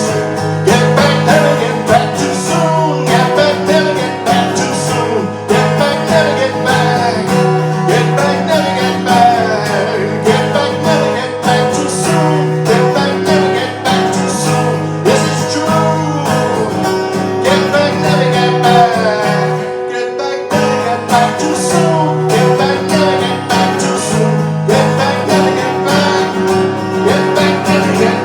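A song played live with guitar, continuing with a steady low bass line beneath a wavering melody.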